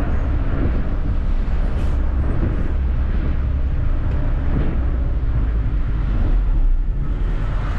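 Car engine and tyre noise heard from inside the cabin while driving slowly through town, a steady low rumble.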